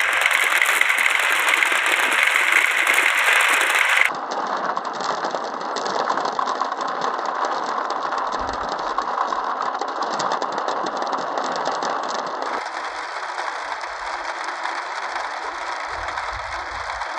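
Many glass marbles rolling and clattering down a wooden marble run, a dense rattle of small clicks. The sound changes suddenly about four seconds in and again about twelve seconds in, and is loudest at the start.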